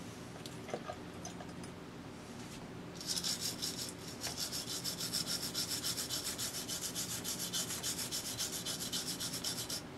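Toothbrush bristles scrubbing alcohol-wetted solder joints on a circuit board to clean off solder flux: rapid, even back-and-forth scratchy strokes that start about three seconds in and stop just before the end, over a faint low steady hum.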